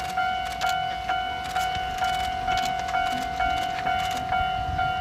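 Railway level-crossing bell ringing steadily at about two strikes a second, each ring a clear tone that fades quickly: the warning that a train is approaching the crossing.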